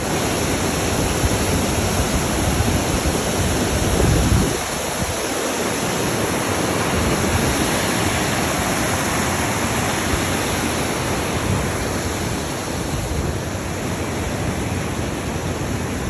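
A waterfall's white water crashing over rocks: a loud, steady rush with no let-up, and a brief low rumble about four seconds in.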